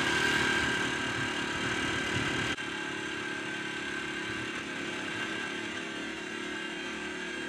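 Dirt bike engine running steadily while riding, heard from on the bike. The sound drops abruptly about two and a half seconds in, where one take is spliced to another.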